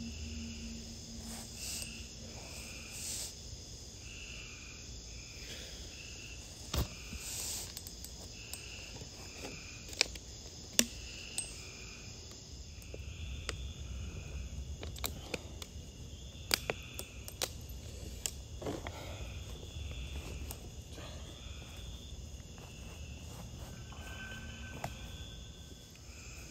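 Crickets and other night insects chirping, a slow repeating chirp over a steady high trill, with a few sharp clicks scattered through.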